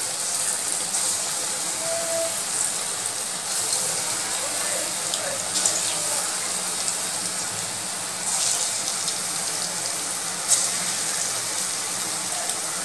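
Balls of urad dal batter deep-frying in hot oil in a kadai: a steady sizzle, with a few sharper crackles now and then.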